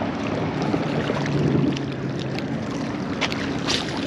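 A boat motor running with a steady low hum over wind and water noise. Two sharp clicks come near the end.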